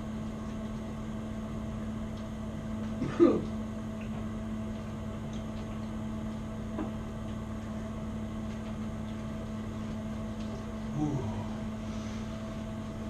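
Steady low electrical hum in a quiet room, with a short sound about three seconds in and a man's brief "ooh" near the end.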